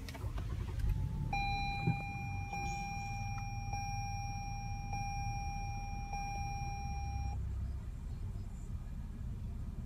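A 2016 Lexus RX 350's 3.5-litre V6 starts at the push of the start button and settles into a quiet, steady idle. A steady high electronic tone sounds over it from about a second in until about seven seconds in.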